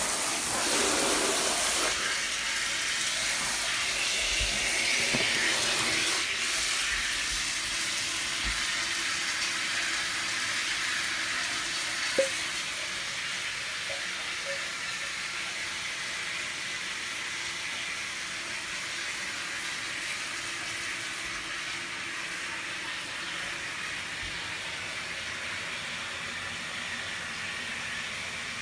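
Water running from a handheld shower head into an inflatable baby bath: a steady hiss, a little louder in the first two seconds. A brief click about twelve seconds in.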